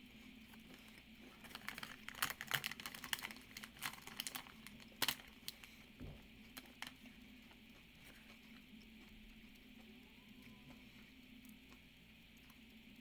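Crackling and clicking from handling and eating a Feastables Milk Crunch chocolate bar, dense from about a second and a half in to about seven seconds in; after that only a faint steady hum.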